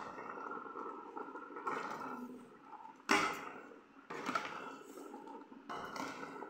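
Metal spoon stirring and scraping chopped pumpkin in a steel pot, with a few sharp knocks against the pot; the loudest knock comes a little after three seconds in.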